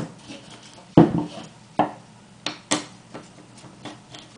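Sharp metallic clicks and clinks of a screwdriver against the screws of a detachable clipper blade as the screws are worked loose, with the tool and parts knocking on the table. There are about half a dozen separate strikes, the loudest about a second in.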